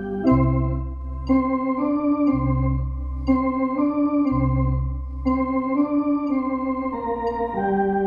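Electronic home organ with pedalboard playing a slow exercise: held chords on the keyboards, changing about every second, each with a short click at its start, over deep pedal bass notes held about two seconds each.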